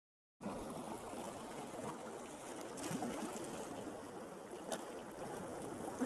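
Small sea waves washing in among shoreline rocks, a steady rush and splash of water that starts a moment in.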